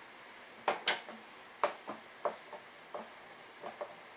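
Scattered light clicks and knocks, about nine in four seconds and loudest about a second in: a hand screwdriver and the plastic housing of a Stihl backpack blower being handled as its cover screws are taken out.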